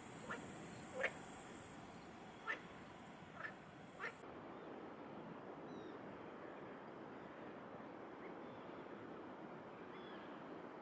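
Faint night ambience: steady high-pitched chirring of crickets with a few short, sharp rising animal calls, cutting off abruptly about four seconds in. After that, quieter outdoor background with a few faint bird chirps.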